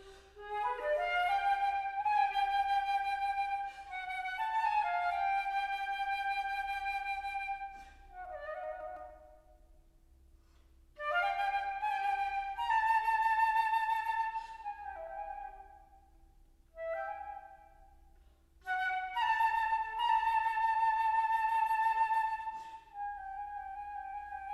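Solo flute playing a slow, free-flowing melody in several phrases, each broken off by a short pause and followed by a brief fragment or a held note.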